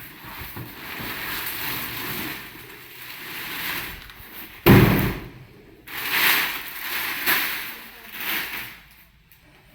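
Rustling and scraping of cardboard and plastic packaging being handled, in swells, with one loud knock a little under five seconds in.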